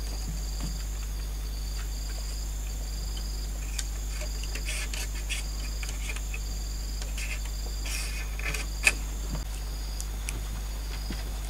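Insects chirring steadily in high, pulsing tones, with a few sharp clicks and knocks from the bamboo frame being handled, the sharpest about nine seconds in.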